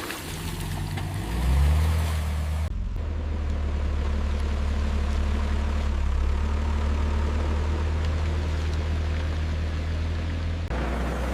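Low, steady drone of a large vehicle engine running. The sound changes abruptly about three seconds in and again near the end.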